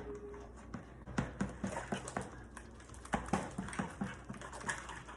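Freshly activated glue slime being stirred and worked in a bowl: a run of short, irregular wet clicks, several a second, as it turns into slime.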